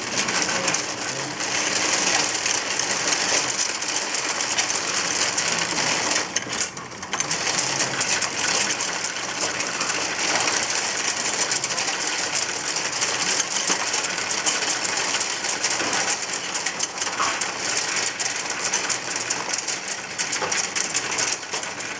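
Automatic mahjong table running its shuffle cycle: a continuous dense clatter of plastic mahjong tiles tumbling against each other and the machinery, over the whir of its motors. The table is running normally with a newly replaced pusher.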